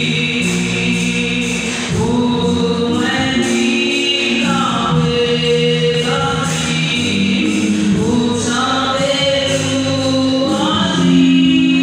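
Gospel choir singing a song with long held notes.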